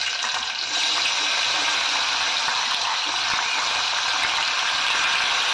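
Chopped onions sizzling in hot oil in an open pressure cooker as they are spooned in: a steady, loud hiss.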